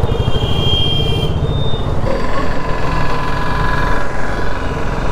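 Motorcycle engine running with road and wind rumble while riding through a turn, with a brief high electronic beep in the first second.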